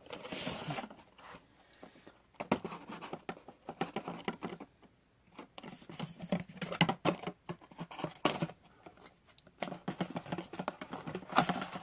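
Camera box packaging being handled and unpacked by hand: an irregular run of rustles, scrapes and small clicks.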